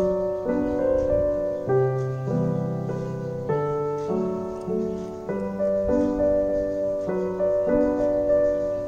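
Background piano music: a slow, gentle melody over soft chords.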